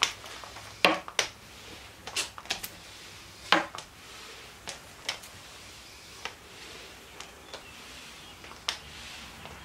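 A small foam paint roller worked back and forth over a wet topcoat on a tabletop: a dozen or so irregular sharp clicks and light knocks over a faint hiss.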